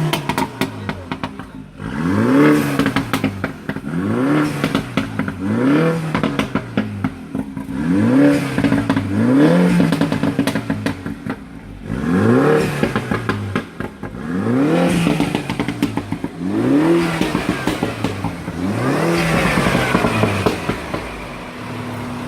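Mini Cooper S engine through a John Cooper Works exhaust being blipped repeatedly from idle, about every two seconds: each rev climbs and falls away with a spatter of pops and crackles from the exhaust on the overrun, then settles back to a steady idle near the end.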